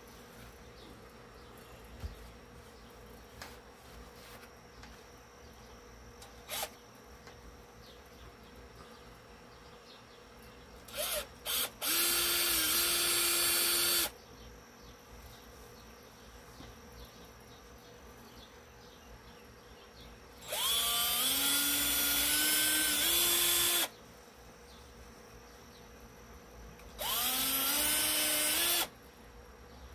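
Small handheld power tool run in three bursts of two to three seconds each, after a couple of brief blips. Each burst starts with a rising whine as the tool spins up, then holds a steady, high-pitched run.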